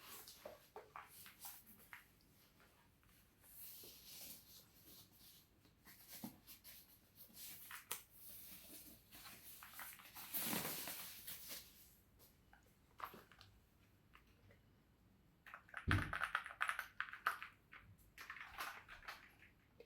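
Packaging being handled during a keyboard unboxing: cardboard sliding and rustling, scattered light clicks and taps, a dull thump about two-thirds through, then crinkling of packing material.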